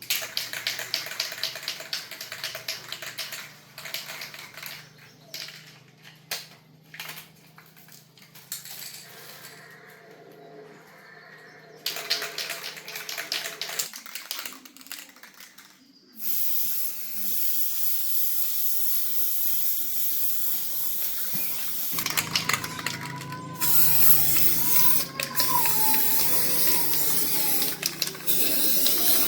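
Paint being sprayed in a workshop: after some quick scraping strokes and short handling noises, a steady spray hiss starts about halfway through and keeps going, with a faint wavering whistle over it near the end.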